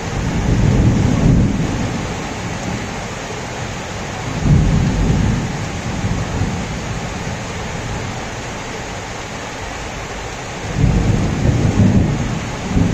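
Heavy rain pouring down steadily on trees and roofs, with a low rumble swelling up three times: at the start, about four seconds in, and near the end.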